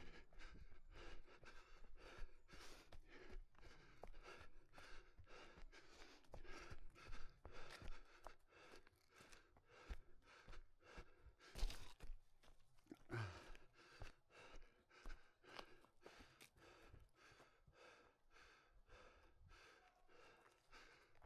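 Running footsteps on the forest floor, about three a second, with the runner's hard breathing, and one louder knock about halfway through.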